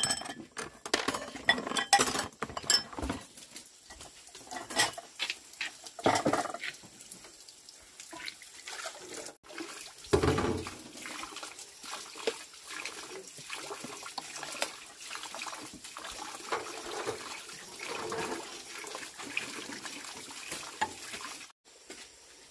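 Ceramic bowls clinking and clattering as they are stacked by hand in a plastic basin. From about ten seconds in, water runs steadily from a hose into a stainless steel sink, with light clinks of dishes being washed.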